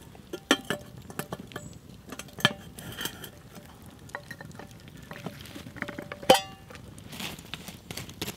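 Stainless steel billy can, its lid and wire handle being fitted and latched: a string of sharp metallic clinks and taps with a brief ring, the loudest about six seconds in.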